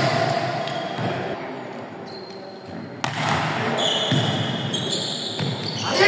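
Indoor volleyball court noise echoing in a large hall: a volleyball being hit and bounced and players calling out, with a sudden sharp hit about halfway through.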